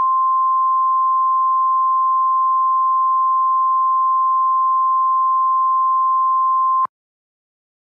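Emergency alert attention tone: one steady, high-pitched, single-pitch beep held for several seconds, cutting off abruptly about seven seconds in.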